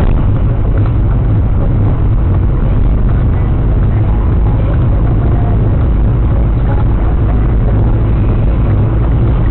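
Steady low rumble of a car on the move, road and engine noise recorded by a dashboard camera, with no distinct impact or event.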